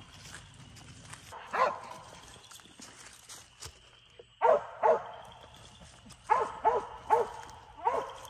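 A squirrel dog barking at a tree where a squirrel has run up: seven short barks, one about a second and a half in, then six more from about four and a half seconds on, some in quick pairs.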